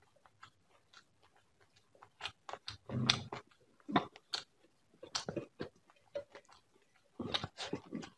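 Close-miked chewing of rice and prawn curry: wet mouth smacks and clicks in irregular clusters. They are sparse for the first two seconds, then come thicker.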